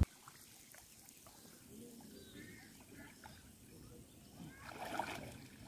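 Faint water sloshing and swishing as a man wades through a shallow pond dragging a leafy tree branch, growing louder about five seconds in.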